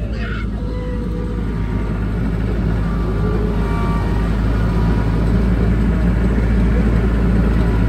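Steady low rumble of a moving vehicle, growing slowly louder.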